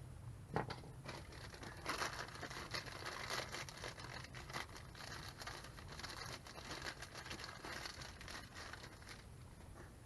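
Crinkling and rustling of packaging as a new drum-brake wheel cylinder is unwrapped, with a single knock about half a second in.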